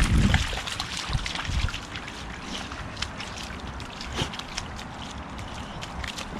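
Water splashing and sloshing as a boxer dog paws and digs at a shallow rain puddle, many small splashes scattered throughout. A low rumble in the first half-second.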